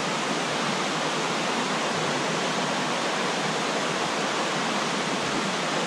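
Steady rushing of creek water.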